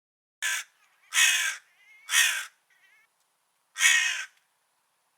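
Crow cawing: four harsh caws, the first one short, with a longer gap before the fourth.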